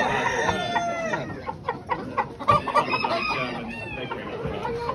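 Chickens in show cages calling over one another: a long drawn-out falling call in the first second, then a run of short clucks, with more calls after.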